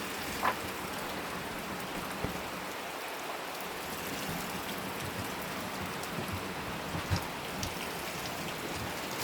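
Steady rush of water, with a few faint brief taps.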